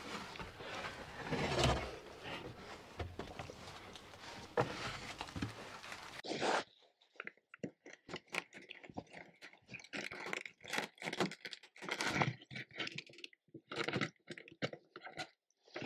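Hand brace and bit boring into a wooden plank: quick, irregular scraping and crunching as the bit cuts the wood. This starts abruptly a little under halfway in. Before it there is a steady rustling hiss with a few knocks.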